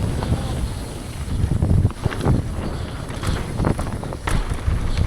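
Wind rushing over the microphone of a downhill mountain bike riding fast, with the bike rattling over the trail and several sharp knocks from hitting bumps.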